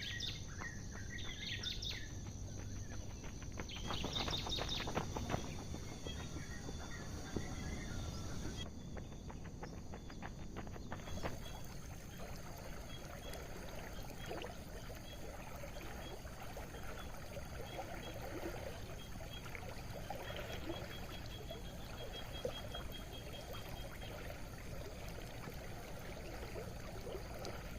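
Birds chirping over a steady outdoor background hiss. The chirps are busiest in the first few seconds, and a long run of quick, evenly spaced high notes follows later.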